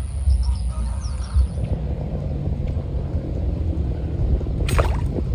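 Low, steady rumble of wind buffeting the microphone outdoors, with a few faint bird chirps at first.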